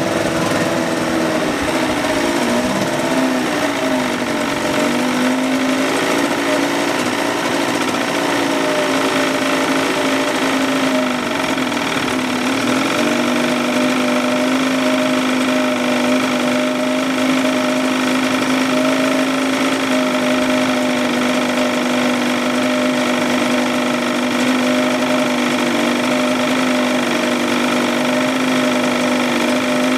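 Small two-stroke outboard motor running on a test stand. The revs drop and come back up twice as the tiller throttle is turned, then settle at a steady lower speed.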